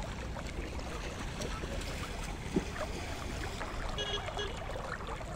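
Shallow river water lapping and trickling close to the microphone over a steady low rumble, with faint distant voices. One brief thump about two and a half seconds in.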